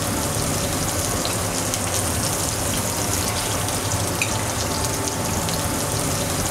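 Prawns searing in hot olive oil and sliced garlic in a cast-iron pan: a steady sizzle with fine crackling.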